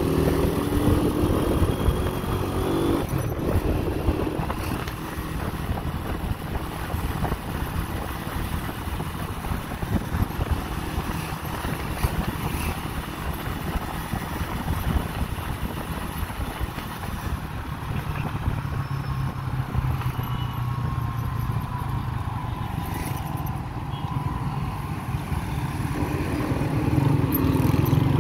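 Motorcycle engine running under way, with wind rushing over the microphone. The engine note rises in the first few seconds, sinks under the wind noise through the middle, and comes back louder near the end.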